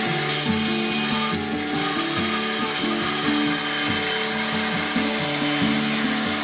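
A tool working wood, a steady rasping, sawing-like noise, under background music with a low melody that changes note every half second or so.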